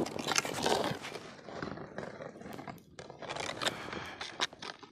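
Heavy ice chisel (tuura) jabbed repeatedly into a hole in lake ice: crunching and scraping of broken ice, with several sharp knocks in the second half.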